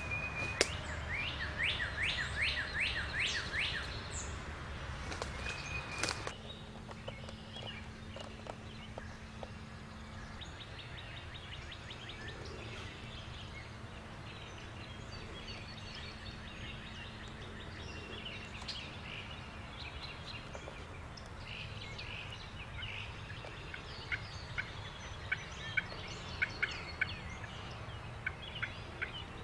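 A fast run of about ten turkey call notes in the first few seconds. After a sudden drop about six seconds in, quieter scattered songbird chirps over a faint steady hum, with a few sharp ticks near the end.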